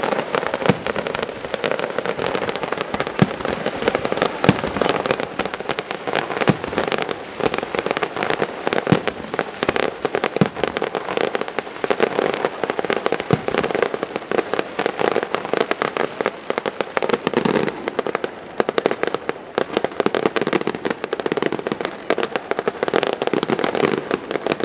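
Fireworks display: a dense, continuous crackle of many rapid small reports from bursting aerial shells and low-level effects, with occasional louder bangs standing out.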